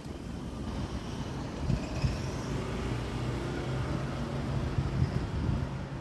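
Low rumble of a motor vehicle running nearby, with a steady low hum from about two and a half seconds in until just before the end.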